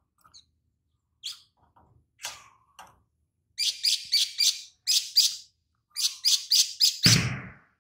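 Male olive-backed sunbird singing: a few sharp, high chirps, then quick runs of rapid chittering notes, its song filled in with mimicked lovebird calls. A dull thump sounds near the end.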